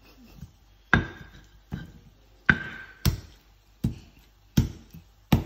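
Stone pestle pounding in a stone mortar: about seven sharp knocks, roughly one every three-quarters of a second, some with a short ring.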